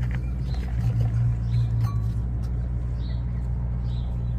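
A steady low machine hum with a few light clicks and taps on top.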